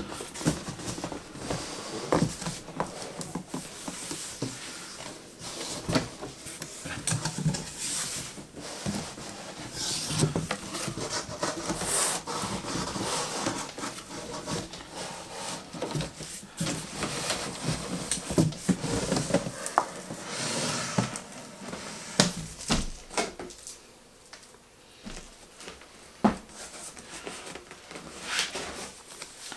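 Cardboard boxes being handled and unpacked by hand: irregular scraping, rubbing and knocking of cardboard, with short sharp knocks scattered throughout.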